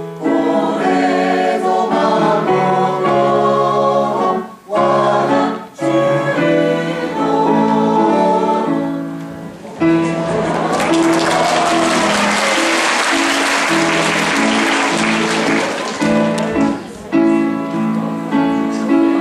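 Choir singing with instrumental accompaniment; about ten seconds in, applause breaks out and carries on over the continuing accompaniment.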